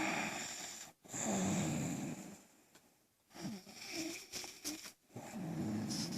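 Snoring: about four rasping snores in a row, each lasting around a second, with short pauses between breaths.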